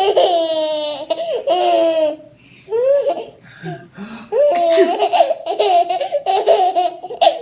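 A baby laughing hard in high-pitched bursts, set off by its mother's sneeze. There is a long laugh at the start, a short one in the middle, and a long run of laughter over the last three seconds.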